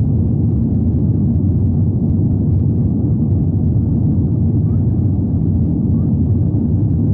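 Steady loud low rumble inside the passenger cabin of an Airbus A350-900, from its Rolls-Royce Trent XWB engines and the airflow around the fuselage.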